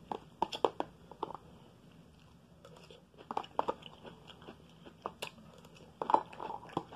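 Thin plastic deli container crackling and clicking as its snap-on lid is pried open by hand, in short clusters of sharp clicks with pauses between.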